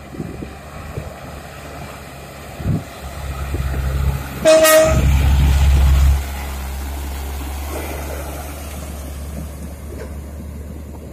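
Heavy diesel machinery running with a low drone that builds and then eases off. A short horn toot sounds about four and a half seconds in, at the loudest point.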